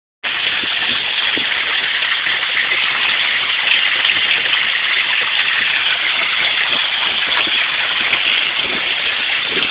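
Water from a garden rock fountain pouring and splashing steadily into its pool.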